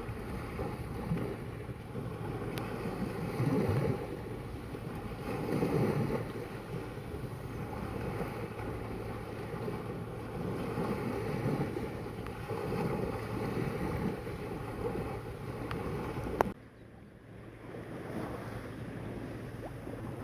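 Sea water washing and lapping in small swells, with wind on the microphone. About sixteen and a half seconds in the sound drops suddenly, then builds up again.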